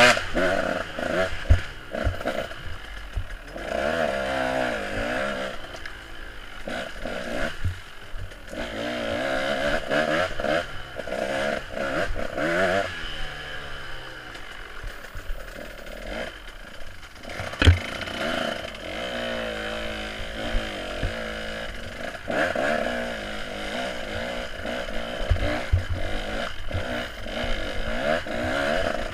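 Off-road dirt bike engine being ridden hard, its revs rising and falling over and over, with knocks and clatter from the bike over rocky ground and one sharp knock a little past halfway.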